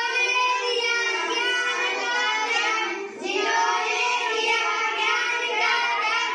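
A group of children singing a song together in unison, in two phrases with a short break for breath about three seconds in.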